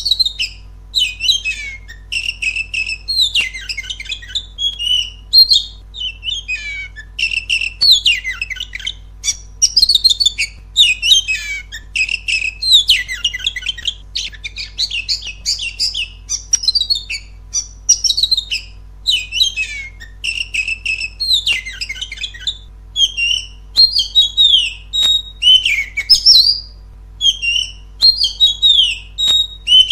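Oriental magpie-robin (kacer) singing a loud, fast, varied song of whistled phrases, trills and harsh chatter, one phrase after another with short gaps.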